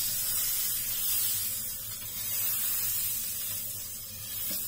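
Butter sizzling as it melts in a hot nonstick frying pan, a steady hiss.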